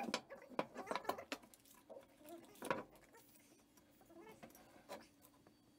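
Knocks and clacks of steel bar stock and tubing handled and set down on a wooden workbench, one sharper clack near the middle, with a few faint short squeaks in between.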